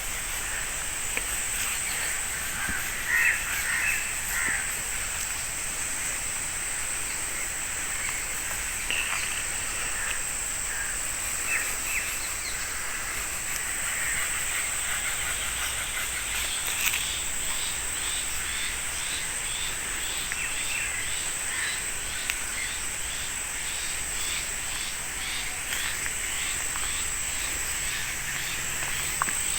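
Rural outdoor ambience: a steady high-pitched insect drone with scattered bird calls, joined about halfway by a regular pulsing insect chirp.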